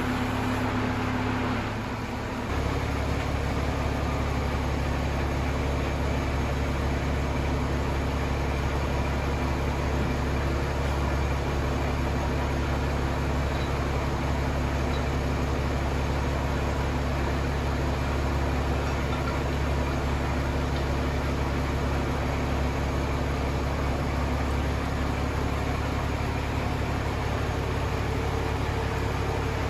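Steady low mechanical hum, like an engine idling, that drops briefly about two seconds in and then drones on unchanged.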